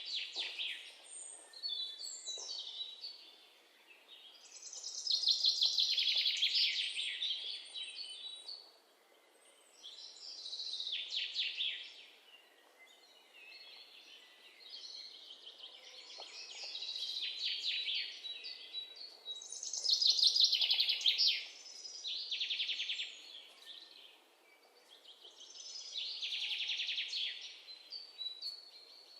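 Small birds chirping and trilling in rapid, high-pitched bouts of a few seconds each, with short quieter gaps between.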